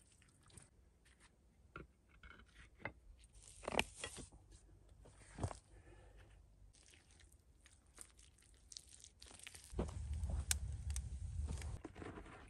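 Faint scrapes and knocks of stone and gritty earth being handled, a few sharper clacks among them. Near the end comes a longer stretch of crunching and scraping as a small shovel digs into stony soil.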